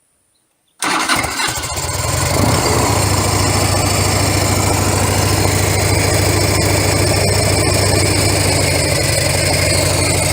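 Harley-Davidson FLHS Electric Glide V-twin engine starting abruptly about a second in, then idling steadily on choke. It runs through mufflers freshly repacked with fiberglass, which give it a quieter, mellow tone.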